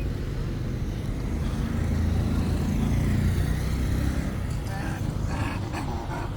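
Low rumble of a road vehicle passing on a city street, swelling to its loudest in the middle and then fading.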